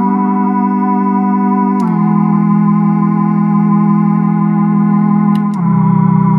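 Moog Werkstatt analog synthesizer voices sounding a sustained, buzzy chord: the VCO and the LFO-turned-oscillator tuned a fifth apart, with a second Werkstatt's oscillator a third above. The chord steps down in pitch about two seconds in and again about five and a half seconds in, with a small click at each change.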